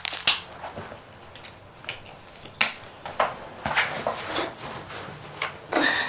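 A fabric backpack being handled and packed, its straps pulled: rustling with a handful of separate sharp clicks and scrapes, the busiest stretch just before the end.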